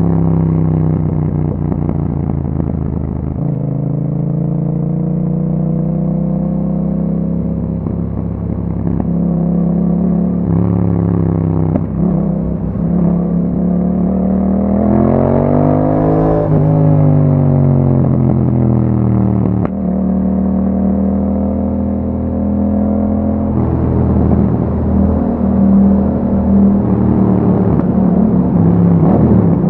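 Yamaha MT-07's 689 cc parallel-twin engine, breathing through an Akrapovic exhaust with a dB killer, running under way. The revs rise and fall with the throttle, climbing to a peak about halfway through and then dropping away.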